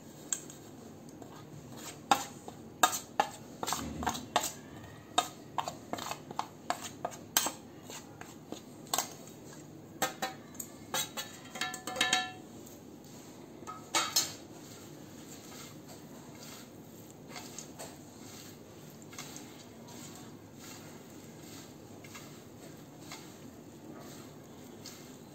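A steel spoon clinking, scraping and tapping against a stainless steel plate as spice powders are knocked off onto fried chana dal, a quick run of clinks with the plate ringing briefly about twelve seconds in. After that only faint rustling as hands toss the crisp dal on a paper towel.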